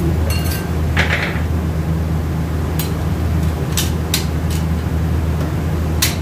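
Automatic transmission steel parts and a hand tool clinking and knocking as a drum and gear assembly is fitted together by hand: several separate sharp clicks, one with a brief metallic ring near the start. A steady low hum runs underneath.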